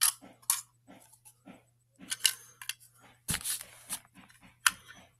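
Plastic toy garbage truck and toy bins being handled: a string of irregular light clicks and clatters of hard plastic, with a denser clatter a little after three seconds.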